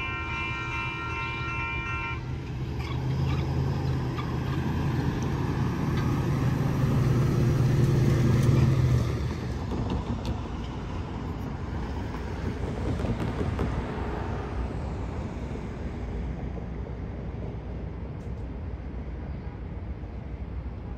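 A horn held on a steady chord cuts off about two seconds in. Then a Union Pacific hi-rail truck's engine comes closer and passes, loudest about eight seconds in, then fades away.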